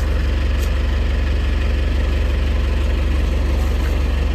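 A heavy truck engine running steadily close by, with a deep, even rumble.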